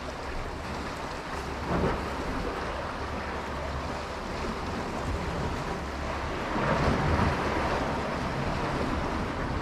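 Sea surf washing on the rocks, with wind on the microphone. Two louder surges of water come about two seconds in and around seven seconds.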